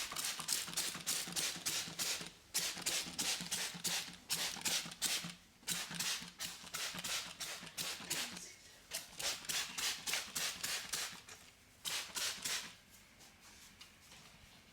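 Barber's scissors snipping through hair in quick runs, about three to four crisp snips a second, with short pauses between runs and tailing off near the end.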